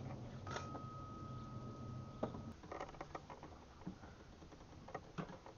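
Scattered light clicks, scrapes and rustles of gloved hands and tools working around the serpentine belt and tensioner in an engine bay. A faint steady tone is heard for about two seconds near the start.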